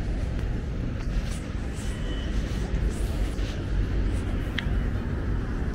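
Outdoor city street ambience: a steady low rumble of traffic on the adjacent road, with a brief high chirp about four and a half seconds in.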